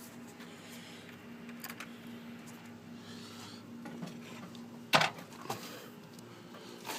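Light clicks over a faint steady hum, with one sharp click about five seconds in, as the motorcycle's key and switches are worked to start it; the engine does not crank or fire.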